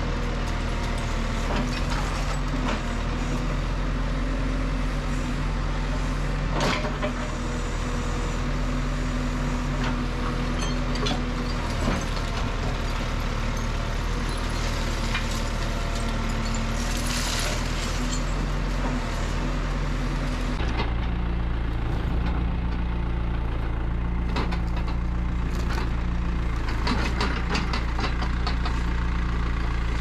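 Terex TX760B backhoe loader's diesel engine running under hydraulic load as the backhoe digs through demolition debris, with occasional knocks and clatter of debris. About two-thirds of the way through, the engine shifts to a deeper, steadier note.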